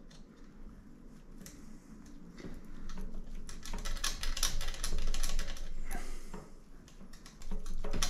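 Bicycle chain clicking and rattling in quick, irregular clicks as a stiff link is flexed back and forth by hand to free it, densest around the middle.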